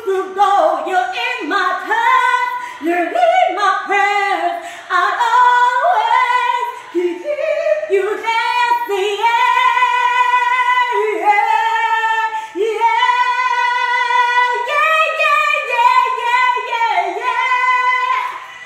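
A woman singing unaccompanied: quick melismatic runs early on, then several long held notes in the middle.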